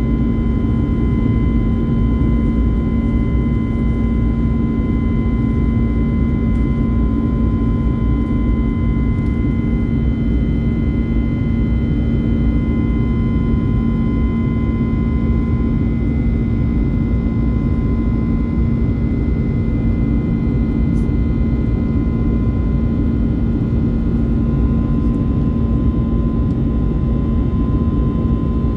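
Steady cabin drone of an Airbus A321neo in flight, heard from a window seat over the wing: the rush of its CFM LEAP-1A turbofans and the airflow, with a steady low hum and a fainter high whine that do not change.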